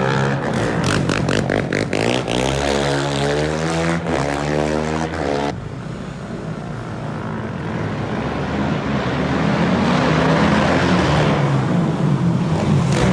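Single-cylinder 450 sport quad engines revving, their pitch climbing and falling. A sudden cut comes about five and a half seconds in, after which an engine runs steadily and grows louder.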